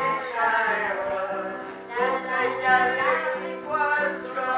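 A man singing with instrumental accompaniment of held notes, on a muffled early-1960s home tape recording.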